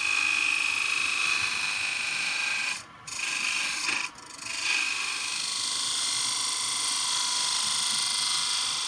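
Turning gouge cutting a spinning wooden hollow form on a wood lathe: a steady hiss of shavings being peeled off, with a high whine running through it. The cut breaks off twice briefly, about three and four seconds in, as the tool leaves the wood.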